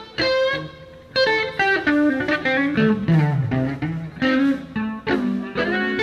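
Electric guitar played through an amplifier, picking single-note blues phrases in short runs separated by brief pauses.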